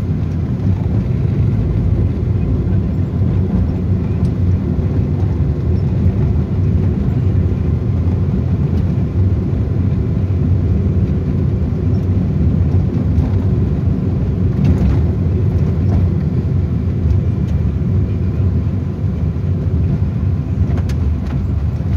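Cabin noise inside a Proton Wira 1.6 automatic sedan on the move: a steady low rumble of its four-cylinder engine and tyres on a rough, narrow lane, with a faint knock about fifteen seconds in.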